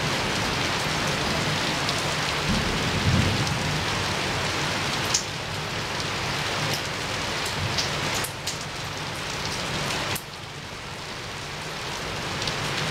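Rain falling steadily against a window, with scattered sharp drip hits. There is a low rumble about three seconds in, and the rain's level drops in sudden steps after about five seconds.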